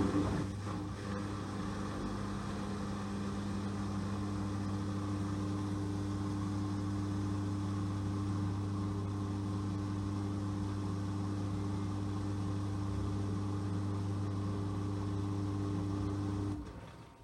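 LG 6.5 kg washing machine running with a steady, unchanging hum. It starts abruptly and stops about sixteen seconds in.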